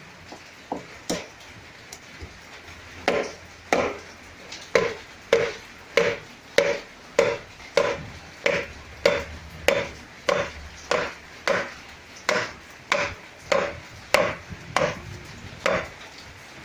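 A knife chopping on a wooden cutting board: two knocks, then a steady run of about twenty strokes, a little under two a second, stopping near the end.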